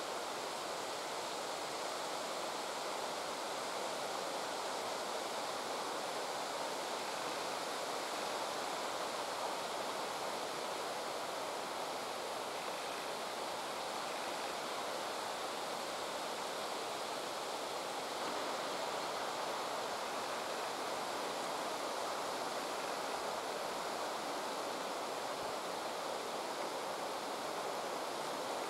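Steady, even rushing noise with no distinct events in it; no bites or chewing stand out.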